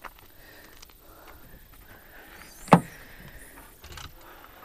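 A single sharp clunk from the rear hatch of a Subaru being opened, with a few lighter knocks afterwards as things are moved in the cargo area.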